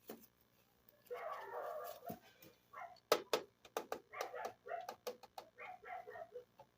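Plastic packaging crinkling for about a second, then a run of sharp clicks and many short squeaky sounds as small plastic toy pieces are handled.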